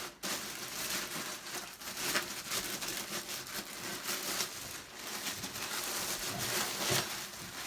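Packing material rustling and crinkling, with scattered small knocks, as a vacuum cleaner is handled and lifted out of its shipping box.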